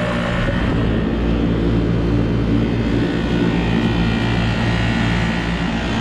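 Steady low mechanical rumble with a faint steady hum, like machinery running.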